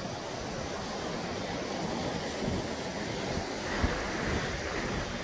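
Small waves washing in over sand and rocks, a steady surf hiss, with wind buffeting the microphone as a low fluttering rumble.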